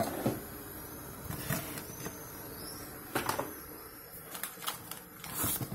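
Plastic pet-food packaging being handled in a cardboard box: a large dry-food bag and foil wet-food pouches lifted and shuffled, giving scattered rustles with a few sharper crinkles.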